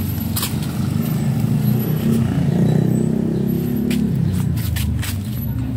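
Motorcycle engine of a tricycle (motorcycle with sidecar) running close by, its pitch rising and falling a little in the middle.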